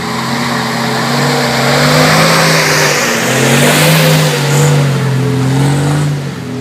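WWII-era military truck engine driving past close by on a muddy track, its note rising and falling as it pulls through. It is loudest midway and drops off near the end.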